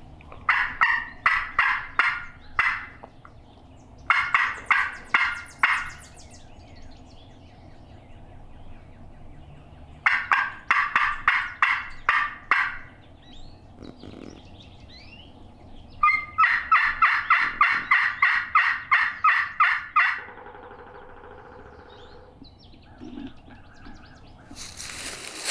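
Hand-worked turkey call sending out four runs of hen yelps, each a quick, even string of notes, with pauses of a few seconds between runs. A loud rustle comes in near the end.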